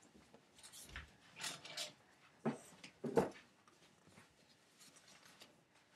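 Scattered rustling and brushing noises with a couple of dull thumps, about one second and three seconds in, as a person moves about the room.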